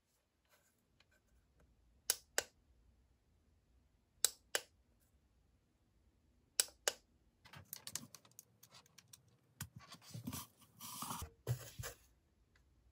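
Three double clicks about two seconds apart from the push-button switch of a small bear-shaped LED mood lamp, pressed to step through its three brightness settings. About halfway through, irregular rubbing and knocking follow as the lamp is handled and moved.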